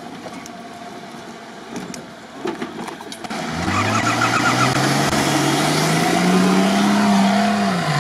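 Toyota Land Cruiser 70's engine revving hard under load as it charges up a steep sandy slope, getting loud about three and a half seconds in, its pitch climbing, then dropping off near the end. Before that, only a quieter engine in the background and a few light knocks.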